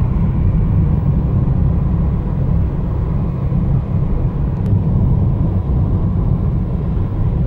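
Car driving on an asphalt road, heard from inside the cabin: a steady low rumble of engine and road noise.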